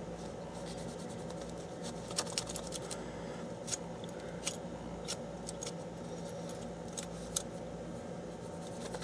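Small sharp clicks and taps, irregular and scattered, as a laptop video card and its heat sink are handled and fitted back together by hand, over a steady low hum.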